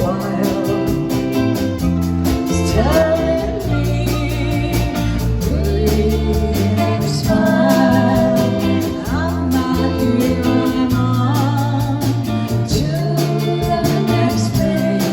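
Live band playing a song, with a singer's voice over guitar.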